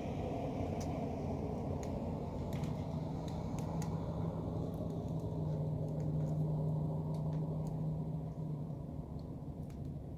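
A low steady rumble with a hum that comes in a few seconds in, is strongest past the middle and fades out near the end, over scattered faint crackles from a campfire's embers.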